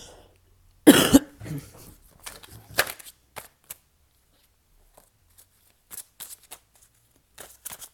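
Tarot cards being shuffled and handled: a loud sharp slap of cards about a second in, then scattered soft clicks and rustles of the cards.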